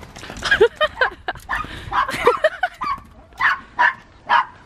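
A small fluffy white dog barking repeatedly, about a dozen quick, short barks.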